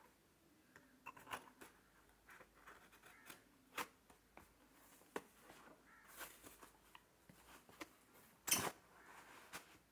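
Faint scattered scratches and clicks of a pointed cutting tool slitting packing tape along the seams of a cardboard box, with the cardboard rustling as it is turned in the hands. The loudest is a short scrape near the end.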